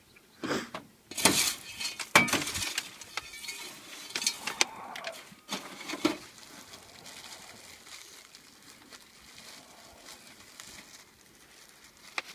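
Freshly popped kettle corn being handled in a bin: several sharp clinks and knocks with rustling, loudest in the first few seconds, then dying down to faint rustling.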